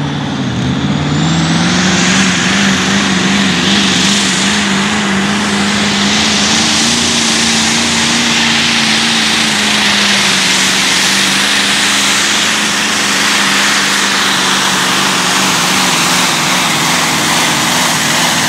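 Competition pulling tractor's engine at full throttle during a pull. The note sags briefly just after the start as it takes the load, then climbs and holds a loud, steady high-revving pitch.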